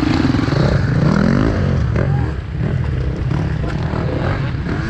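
Enduro motorcycle engines running and revving, the pitch rising and falling with the throttle.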